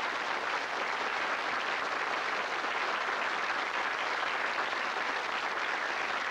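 Studio audience applauding: many hands clapping at a steady pace.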